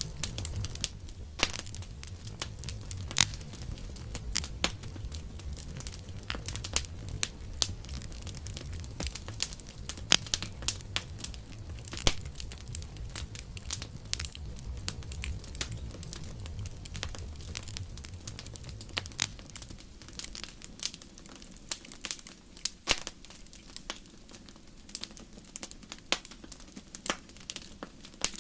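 Campfire burning, with irregular sharp pops and crackles of burning wood over a low rumble of the flames; the rumble eases in the second half while the crackling goes on.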